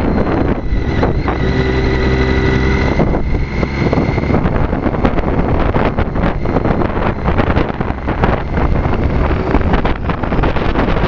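Wind buffeting the microphone on a moving Triumph Street Triple motorcycle. The bike's three-cylinder engine is heard holding a steady note from about a second in until about four seconds in, then sinks back under the wind noise.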